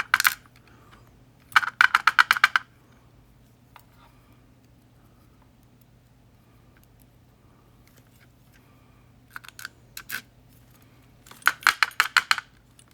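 Small metal parts of a disassembled Yale 2000 Plus lock clicking and rattling as they are handled, in four quick bursts of rapid clicks with quiet stretches between.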